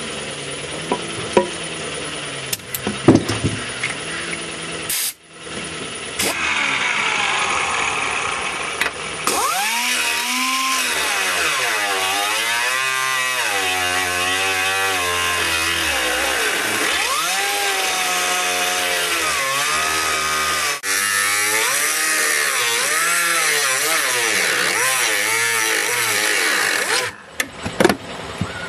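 An old pneumatic cutting tool cutting through the sheet-metal trunk floor: a loud whining cut whose pitch wavers up and down as the tool slows and picks up under load. It starts about nine seconds in and stops abruptly near the end. Before the cut, a steady low hum from the air compressor with a few clicks and clanks.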